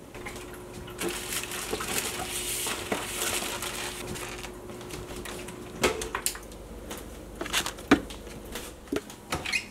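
Rummaging in a refrigerator: plastic bread bags crinkle and rustle for a few seconds, then a few sharp knocks and clicks as containers are picked up and set down on the shelves.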